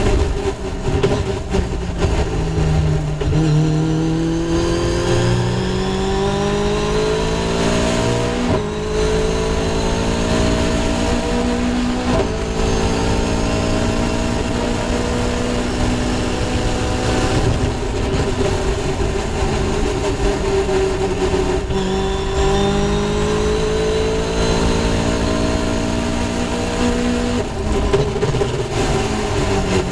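Caterham Seven race car's tuned Ford Duratec 2.0-litre four-cylinder engine at full throttle, heard onboard. Its note climbs in pitch as the car accelerates and breaks sharply twice at quick gear changes about a third of the way in. It then holds high with brief dips, climbs again, and drops near the end.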